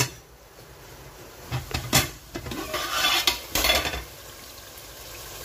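Metal pot lid clanking against a large aluminium pot several times as it is handled and lifted off, then the tomato and pepper base bubbling at a steady simmer.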